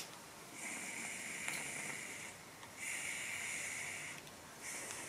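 A butane lighter held to a tobacco pipe bowl to relight it: a click, then the gas hissing steadily in three spells of about a second or so each, with short pauses between them.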